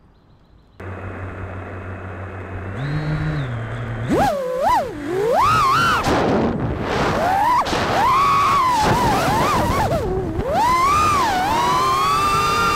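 FPV quadcopter's brushless motors and propellers: they start with a steady low hum about a second in, and from about four seconds the whine sweeps up and down in pitch again and again as the throttle is worked in flight.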